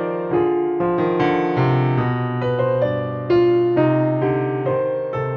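Background piano music: a calm melody of single notes and chords, each struck and left to fade, a new one every half second or so.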